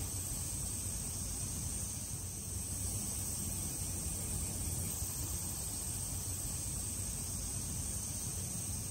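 Steady high insect buzz over a low, even rumble.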